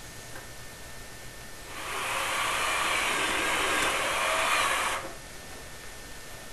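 Power drill running for about three seconds, driving a sheet-metal screw into a joint of the water heater's flue pipe, then stopping sharply.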